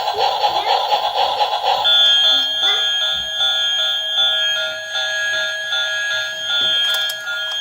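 Electronic music-like sound: a busy, pulsing passage gives way about two seconds in to a steady electronic tone held on several pitches, pulsing about three times a second, alarm-like.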